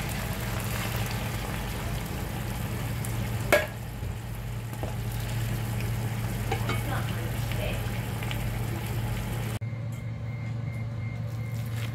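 Chicken pieces sizzling and frying in a pan as they are stirred, with one sharp knock about three and a half seconds in. The sizzling cuts off suddenly near the end, leaving a low steady hum.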